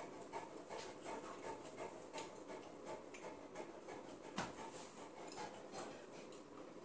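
Saint Bernard panting faintly, with soft irregular clicks.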